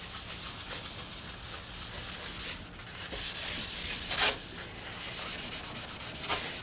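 Scotch-Brite abrasive pad scrubbed back and forth over a steel handsaw blade, rubbing off Perma Blue bluing to bring out the etch; a steady run of hissy rubbing strokes that come quicker near the end.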